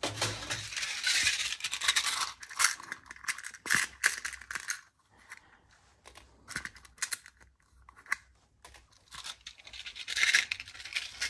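Small plastic LEGO pieces rattling and scraping as they are picked through by hand in a plastic parts drawer. The rattling is busiest for the first four seconds, drops to scattered clicks, and picks up again briefly about ten seconds in.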